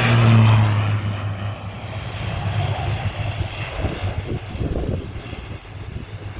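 Small turboprop airplane's propeller engine at takeoff power, passing loud at first, then fading steadily as the plane climbs away.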